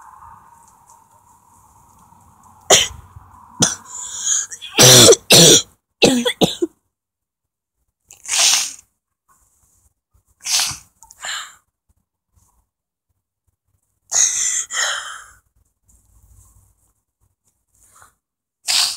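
A person coughing in a series of short, harsh bursts with pauses between, the densest run about three to six seconds in.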